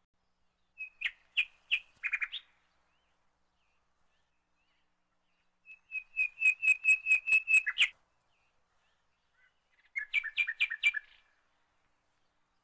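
A bird chirping in three bursts of quick repeated high notes, with near silence between the bursts.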